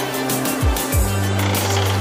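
Background music with a beat: deep kick drums that drop in pitch and a held bass line under hi-hats.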